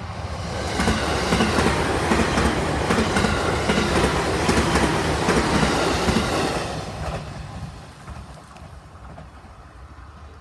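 Limited express Kusatsu train passing over a level crossing at speed, its wheels clacking over the rail joints. It is loud for about six seconds, then fades away as the train recedes.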